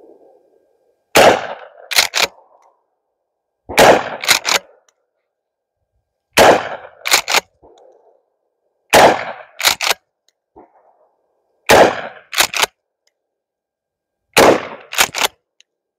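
Mossberg Maverick pump-action 12-gauge shotgun firing Aguila short shells: six shots about two and a half seconds apart, each followed by two quick clacks as the pump is racked back and forward to chamber the next shell.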